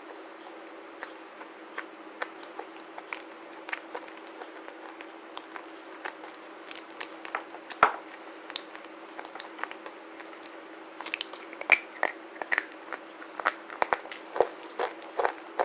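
Close-miked chewing of a black slate bar: a run of sharp, separate crunches, sparse at first and coming thicker and louder in the last few seconds.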